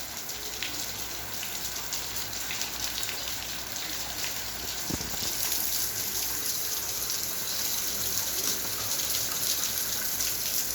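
Rain falling steadily: a hiss of many fine drop ticks that grows a little louder about halfway through, with one brief low thump just before.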